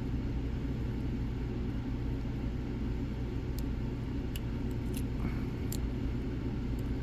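Steady low background rumble, with a few faint sharp ticks about halfway through from lock picks working the pins of a Mul-T-Lock padlock.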